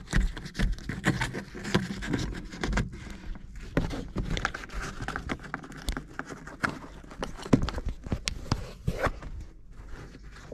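Irregular clicks, taps and scraping as a dashcam power cable is pushed and worked in behind a car's plastic windscreen-pillar trim and headliner by hand.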